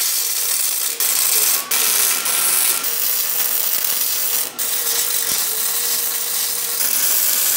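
Wire-feed (MIG) welder arc crackling steadily as steel flat bar is welded onto a steel smoker door, broken by a few short breaks where the arc stops and restarts.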